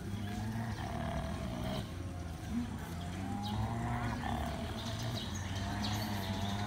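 Low, drawn-out animal vocalizing in three long stretches with short breaks, with a higher wavering whine over it in places.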